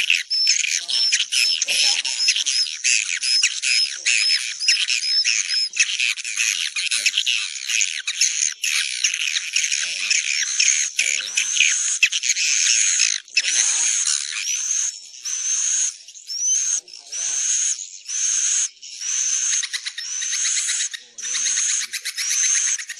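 Swiftlet calling recording: a dense, high-pitched chittering twitter with short upturned chirps repeated about twice a second. In the second half it breaks into bursts with brief gaps. It is a swiftlet roosting call, of the kind played to lure swiftlets into a nesting house.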